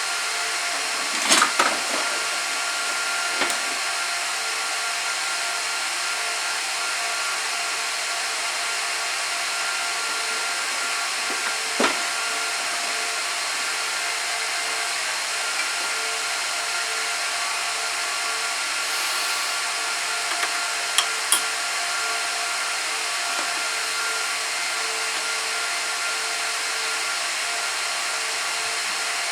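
Cooling fans of a Gigabyte R180-F34 1U rack server running at high speed: a steady rushing whine with several fixed pitches. A few short knocks and clicks come over it, about a second in, at about three and a half seconds, near the middle and about two-thirds through.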